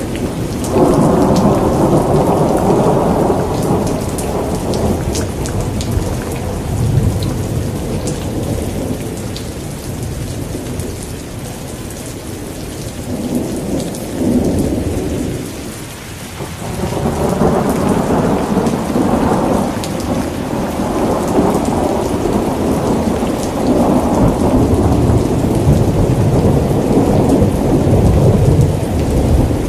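Steady rain with rolling thunder that rumbles and swells several times, easing to a lull about halfway through before building again.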